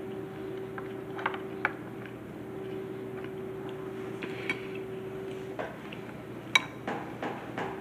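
A spoon clinking and scraping against a bowl while someone eats: a handful of light clicks, the loudest about two-thirds of the way in. A steady hum runs underneath.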